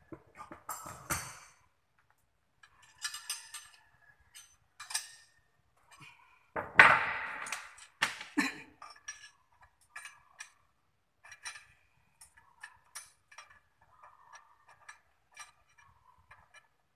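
Metal hand tool clinking and tapping against the service-valve fittings of a split-type air conditioner's outdoor unit: scattered, irregular clinks, with a louder clatter about seven seconds in.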